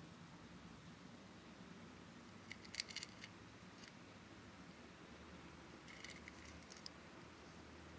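Small plastic Tamagotchi-shaped candy case and its metal ball chain being handled, giving two short clusters of light clicks and rattles, about three seconds in and again about six seconds in.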